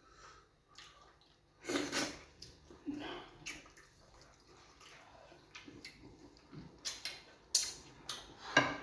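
Wet eating sounds of fufu and groundnut soup: short bursts of slurping, squishing and lip smacks, the loudest about two seconds in and again near the end.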